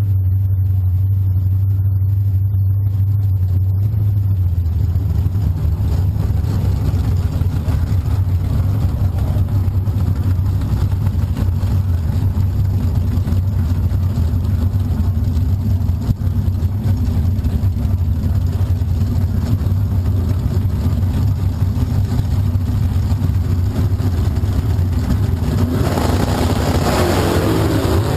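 Drag car's engine idling close to the microphone with a deep, steady drone that grows uneven after a few seconds. Near the end a louder, fuller engine noise swells in.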